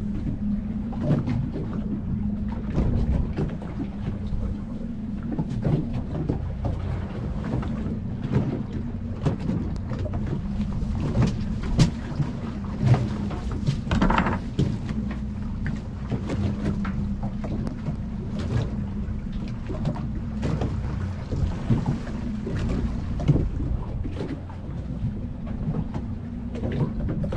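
Fishing boat's motor idling with a steady low hum under a wash of wind and sea noise, with scattered short knocks throughout.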